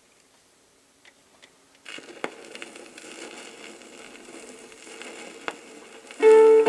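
Turntable stylus set down on a spinning plastic flexi disc (sonosheet): a couple of faint handling clicks, then about two seconds in the needle lands and the lead-in groove gives a steady hiss and crackle with a few sharp pops. Half a second before the end, the record's electric guitar instrumental starts loudly.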